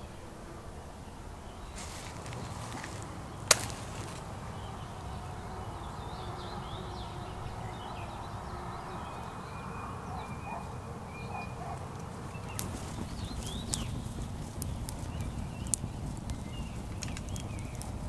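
A single sharp click a few seconds in, then a freshly lit kindling campfire of dry twigs crackling with scattered sharp pops through the second half.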